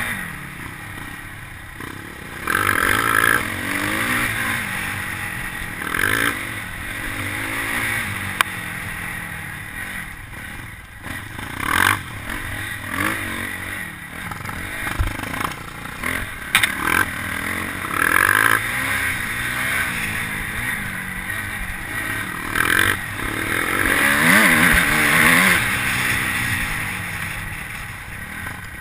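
Suzuki RM-Z250's four-stroke single-cylinder engine revving up and down through the gears, heard from on board, with louder surges of throttle several times and wind noise on the microphone.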